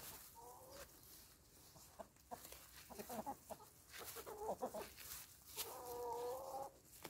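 Black Australorp hens clucking softly: a few short calls, then one longer drawn-out call near the end, with faint light ticks in between.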